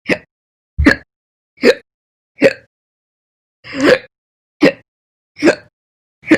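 A woman hiccuping over and over: about eight short, sharp hiccups three-quarters of a second apart, with one longer pause in the middle followed by a slightly drawn-out hiccup.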